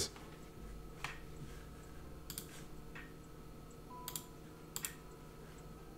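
A handful of faint, scattered clicks from a computer mouse over a low, steady room hum.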